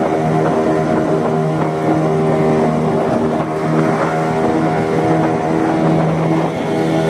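Fishing boat engine running steadily at a constant speed, with a steady hum and a wash of noise.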